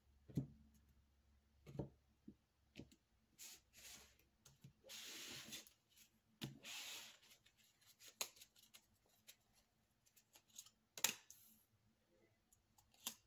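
Faint handling of tarot cards on a wooden table: a few soft taps as cards and the deck box are set down, and two brief sliding rustles in the middle. The sharpest tap comes near the end.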